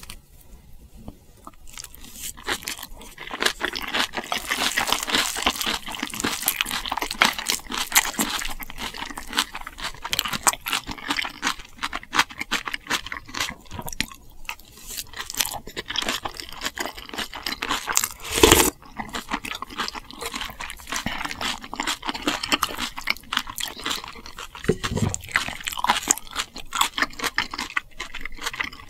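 Close-miked chewing with crisp, crunchy bites, a dense run of small crackles and clicks, with one sharper click about two-thirds of the way through.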